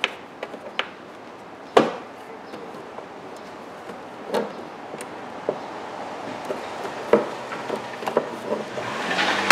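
Sharp plastic clicks and snaps as the interior trim cover of a 2008 Honda CR-V's rear hatch is pried loose with a screwdriver and fingers, its push-pin clips popping out one by one. The loudest snap comes about two seconds in, followed by a few scattered, fainter knocks.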